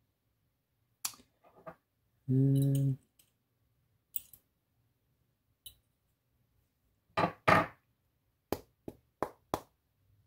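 Small tools clicking and tapping against a Yale Superior pin-tumbler lock while the pin springs are worked out of their chambers: about a dozen sharp separate clicks, the loudest a close pair about seven seconds in and a quick run of four near the end. About two seconds in there is a short hum lasting about half a second.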